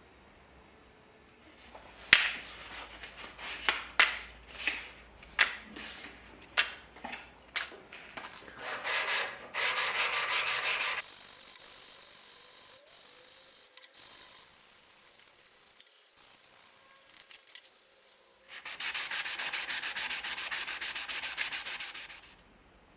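Abrasive scraping on a rusty antique trench lighter being cleaned by hand. It starts as single strokes, then twice turns into rapid, even back-and-forth rubbing.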